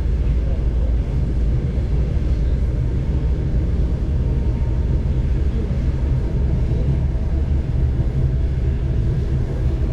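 Steady low rumble of a moving passenger train heard from inside the coach: wheels running on the rails with the hum of the train underway.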